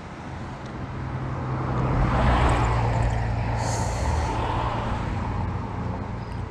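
A road vehicle driving past, growing louder over the first two seconds or so, then slowly fading, with a short hiss about halfway through.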